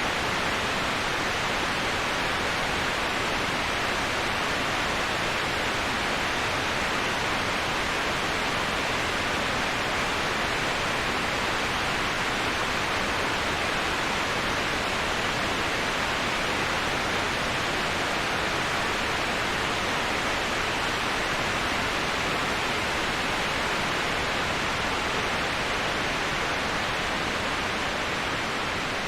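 Waterfall white noise: an even, steady rush of falling water with no distinct splashes or changes.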